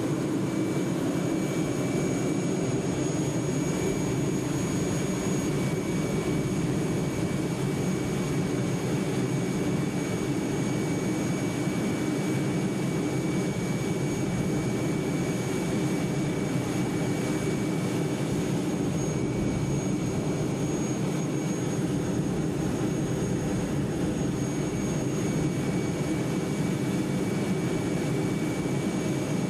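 Heavy engine running steadily, a constant deep drone with a thin high whine over it.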